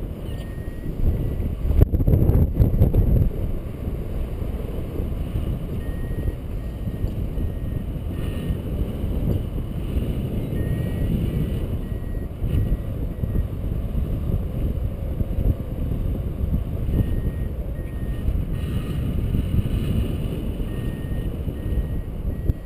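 Wind buffeting the microphone of a harness-mounted camera during a paraglider flight: a loud, low rushing that swells about two seconds in. Faint high beeps come and go.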